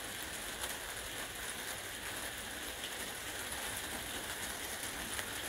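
Steady, even hiss with no distinct events, like light rain or background noise.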